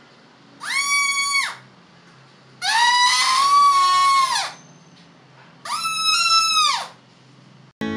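Ice-cream-stick harmonica, a paper strip stretched between two wooden sticks, blown between the lips: three high notes, each sliding up in pitch as it starts and down as it dies away. The middle note, about two seconds long, is the longest.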